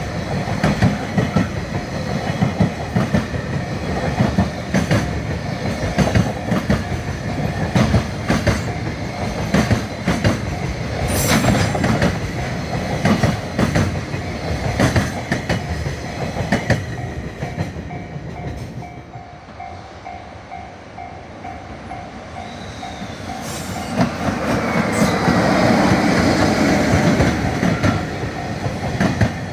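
Freight train passing close by, its wagon wheels clacking over the rail joints in a steady rhythm. The rumble drops away about two-thirds of the way through, then builds again. A level-crossing warning bell rings in a rapid repeating pattern through the later part.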